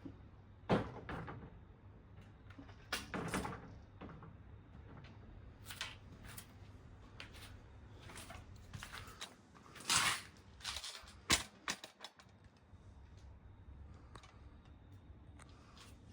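Bike parts and tools being handled while fitting a rear rim brake and its cable: irregular clicks and knocks, several sharp ones and a few short clattering scrapes.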